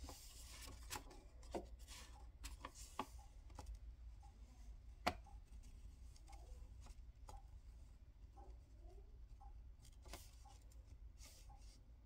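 Faint scratching of a pencil drawing on paper, with scattered light taps and one sharper click about five seconds in.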